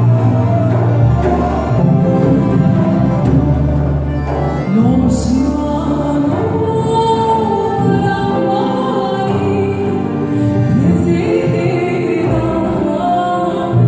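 A choir and orchestra performing together: voices singing over sustained low bass notes that change every second or two, with the singing sliding up into new notes twice.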